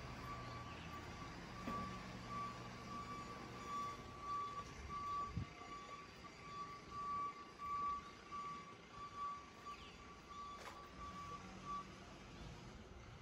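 An electronic warning beeper repeating one steady high note in even on-off pulses, of the reversing-alarm kind, which stops about twelve seconds in.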